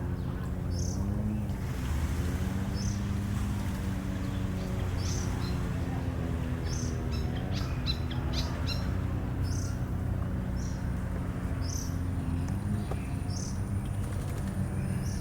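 A bird giving short, high chirps about once a second, with a quick flurry of several calls about halfway through, over a steady low hum.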